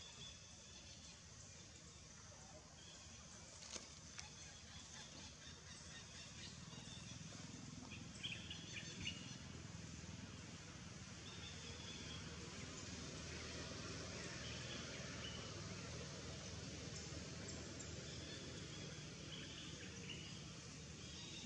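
Faint outdoor ambience: scattered short bird chirps over a low, steady background rumble, with a couple of soft clicks.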